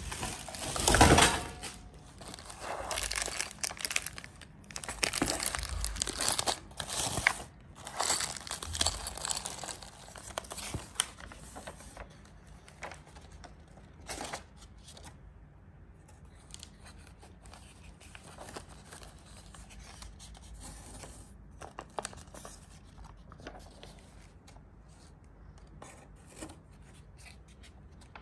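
Clear plastic wrapping crinkling and tearing as packaging is handled, loudest through the first ten seconds or so. After that, quieter scattered rustles and crackles of paper as instruction-booklet pages are turned.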